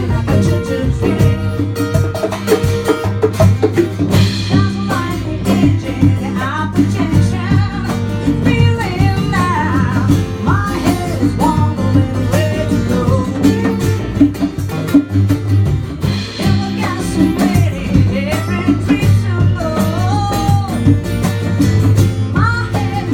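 Live acoustic band music: a sung vocal melody over strummed acoustic guitar, with a steady beat from a cajon.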